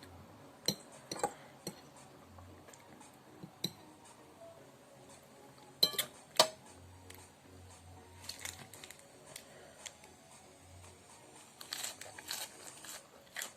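Utensils and dishes clinking, a few separate sharp clicks with the loudest pair about six seconds in, then soft rustling twice later on.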